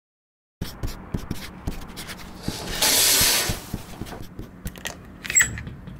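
Handling noises: small clicks and knocks, starting after a moment of silence, with a louder rushing rub lasting about a second near the middle and a short high squeak about five seconds in.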